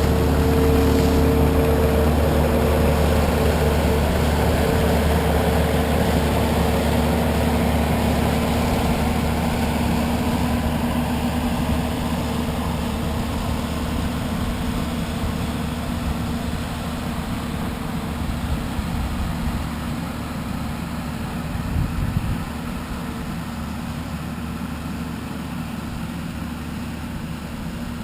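Skid steer engine running with its brush mower attachment working, a steady heavy engine sound that slowly fades as the machine works away. There is a brief louder surge about 22 seconds in.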